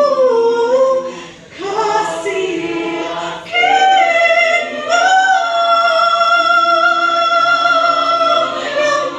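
Mixed choir singing a cappella, with a short dip about a second and a half in and a long held chord through the second half.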